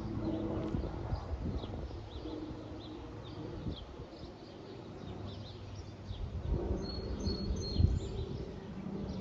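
Small birds chirping, a steady string of short high chirps, over the low, steady rumble of an aircraft passing high overhead.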